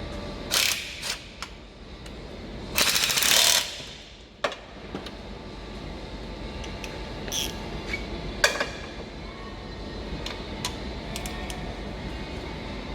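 Hand tools clicking and clattering on metal during engine-bay work, with a burst of rapid ratchet clicking about three seconds in and scattered single clicks after it.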